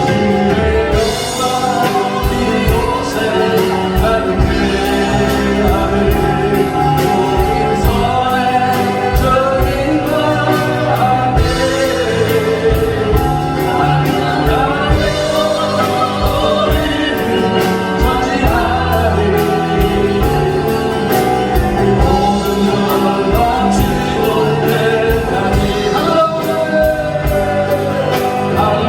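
Korean Christian worship song sung by a group of voices over a band, with a steady beat.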